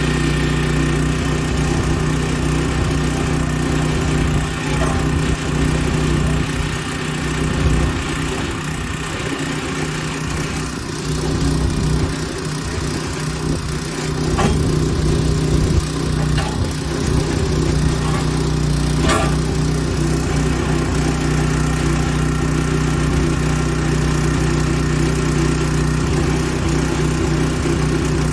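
Small backhoe's engine running steadily at idle, with a few light clicks partway through.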